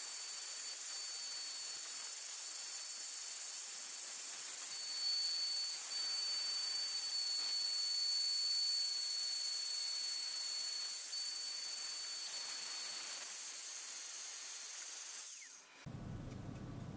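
Homemade CNC router running just after a cut: a steady high hiss from the spinning router with thin high whines that come and go. It cuts off suddenly near the end.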